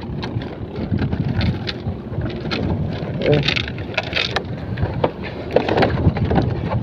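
Wind buffeting the microphone as a low rumble, with scattered knocks, clicks and rustles from a wet cast net and a plastic basket being handled while fish are taken out of the net.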